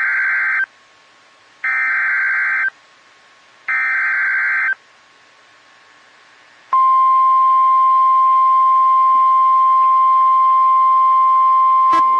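Emergency Alert System SAME header: three bursts of warbling digital data tones, about a second each and a second apart. After a two-second pause, the steady 1050 Hz NOAA Weather Radio attention tone begins and holds, with a brief click just before the end.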